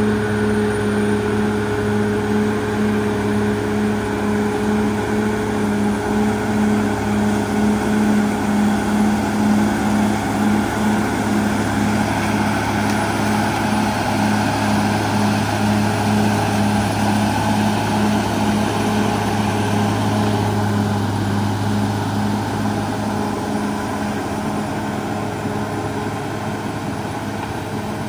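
CAT D6R XL crawler dozer's diesel engine running steadily under load as the dozer pushes soil and rock with its blade. It is a low, steady drone with a regular pulsing note over it, easing off somewhat over the last few seconds.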